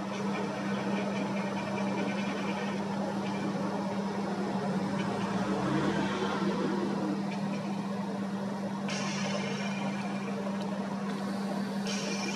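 Boat engine running steadily, a constant low drone with a noisy wash over it; a higher hiss joins about nine seconds in.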